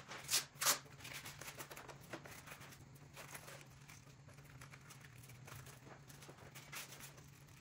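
Faint handling noise of a battery mount strap being pulled tight around an e-bike's down tube: soft rustles and small ticks, with two sharper clicks within the first second.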